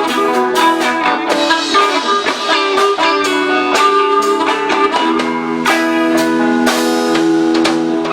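Live rock band playing an instrumental passage, with guitar at the front over a drum kit and sustained notes.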